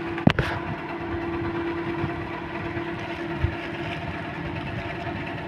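Clear plastic shopping bags rustling and crinkling as they are handled, with one sharp crackle near the start and a small knock later. Beneath them runs a steady motor hum.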